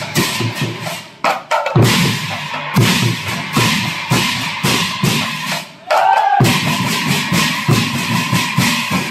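Assamese nagara naam percussion: drums beaten with large hand cymbals clashing in a fast, even rhythm. The playing breaks off briefly twice.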